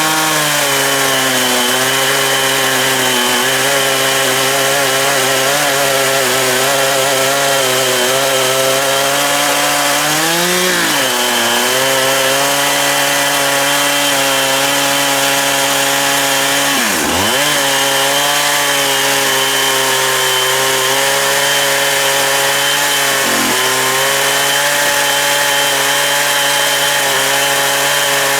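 Husqvarna 365 two-stroke chainsaw running at high revs, ripping a log in an Alaskan chainsaw mill. Its engine note holds steady but sags and recovers three times, the deepest dip about halfway through.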